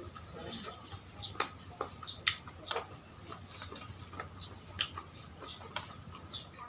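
Close-miked eating sounds: a mouth chewing, with irregular wet clicks and smacks.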